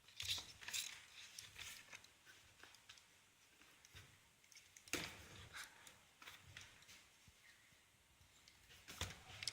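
Faint scattered clicks and taps of someone working a computer, with a sharper click about five seconds in and a few more near the end.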